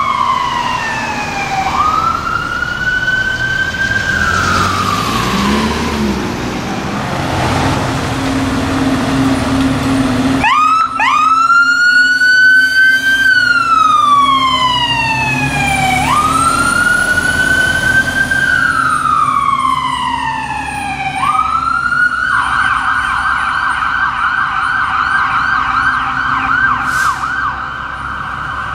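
Fire engine's Whelen electronic siren sounding a slow wail, rising and falling every several seconds. About a third of the way in it breaks off abruptly and winds up again, and near the end it switches to a fast yelp.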